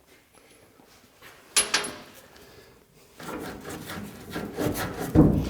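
Scraping, rubbing and knocking of steel and wood parts as the snowblower's lower cut edge is worked free on its support blocks. There is a sharp clack about a second and a half in, steady scraping from about three seconds in, and a heavy thump near the end.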